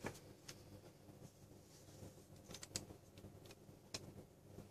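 Near silence: faint room tone with a few soft, scattered clicks.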